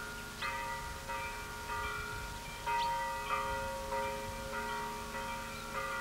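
Village church bell chiming: struck over and over in a quick, steady rhythm, about one to two strokes a second, each stroke ringing on into the next.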